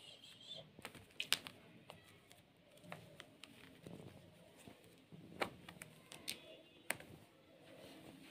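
Faint, irregular sharp clicks and light taps as a cat paws and claws at a sheer curtain, its claws catching in the fabric. The loudest click comes about a second in, with a few more later on.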